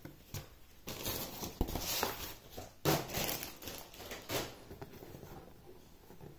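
Cardboard lamp box being handled, turned over and laid down by hand: a series of knocks, taps and rustles of card, growing quieter near the end.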